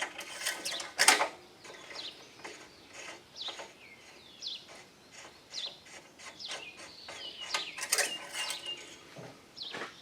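Short clicks and clatters of handling a lawn mower's parts, loudest about a second in and again around eight seconds in, while small birds chirp repeatedly in the background.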